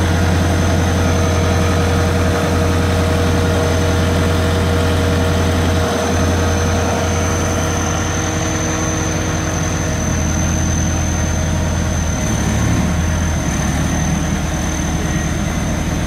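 ABG Titan 111 asphalt paver's diesel engine running steadily at idle, a deep even hum whose note shifts slightly a couple of times, with a thin steady high whine over it.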